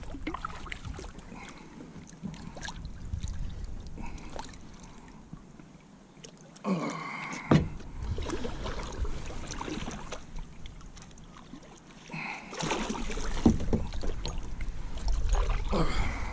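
Scattered knocks, clicks and rubbing from handling on a kayak while a hook is worked out of a big catfish, over a low rumble of wind or water that comes and goes.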